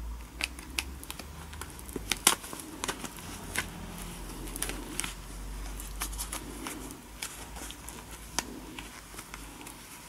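Irregular small clicks and taps of plastic and metal being handled, with faint rustling of gloved hands, as the wound-up flat coil spring of a Dyson vacuum cleaner's cord rewind is worked into its housing. A few of the clicks stand out louder, about two, three and a half and eight seconds in.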